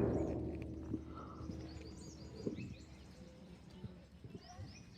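Faint chirping of small birds in the background, with a few soft knocks, as the echo of loud beats dies away in the first second.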